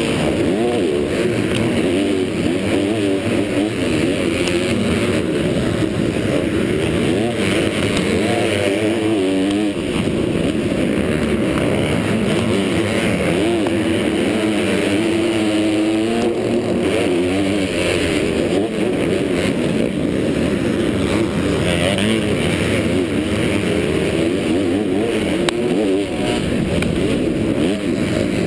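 Motocross bike engine racing hard, its pitch repeatedly rising and falling as the rider revs, shifts and rolls off through the turns, heard from a helmet-mounted camera.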